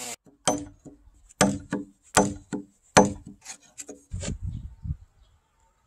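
A hammer striking a chisel into a timber beam, about eight sharp, irregularly spaced knocks that break out the waste from a chainsaw-cut joint. Near the end comes a short stretch of the chisel scraping and paring the wood.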